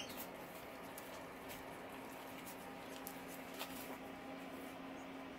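Faint scattered clicks of dog and puppy claws on a tile floor, over a steady low hum.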